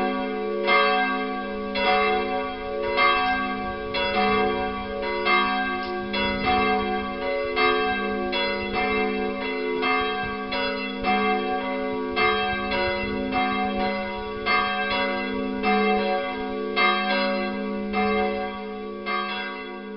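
Peal of 19th-century cast-steel church bells from the Bochumer Verein, swinging and ringing together with strikes overlapping over a steady hum.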